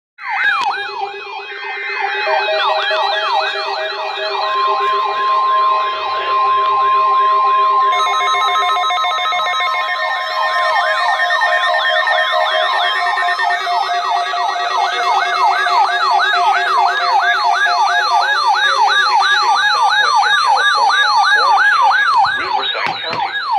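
Emergency-alert audio made of several electronic sirens wailing over one another, each sweeping up and down about twice a second. Under them run steady and pulsing alert tones, with one long, loud, high steady tone from about four seconds in to about halfway.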